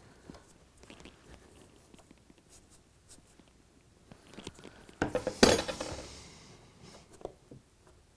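Light clicks of a steel ruler and fingers against model railway track, then a louder metallic clatter with a short ring about five seconds in, as the steel ruler is handled.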